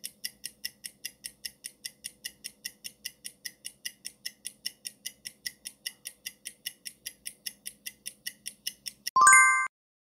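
Countdown-timer sound effect: quick, even clock-like ticking, about five ticks a second, over a faint steady hum. About nine seconds in it ends with a short, loud, bright chime signalling that time is up.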